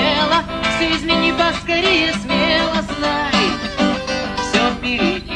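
Acoustic guitar strummed in a steady rhythm, with a wavering lead melody line over the chords, in a wordless instrumental break of a song.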